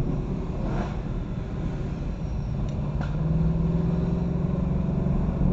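Ford Mustang GT's V8 engine and exhaust running steadily on the road, a low drone with road noise that grows a little louder from about halfway.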